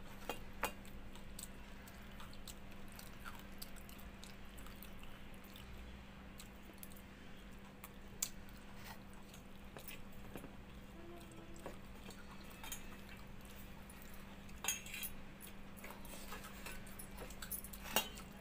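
Eating by hand from steel dishes: scattered clicks and clinks of fingers against a steel plate and bowl, with soft chewing, over a steady low hum.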